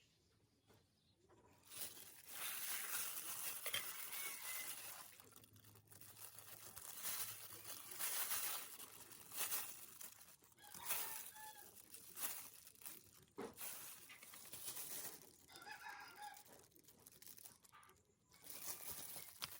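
Intermittent rustling and crinkling handling noises, with a few short bird calls in between.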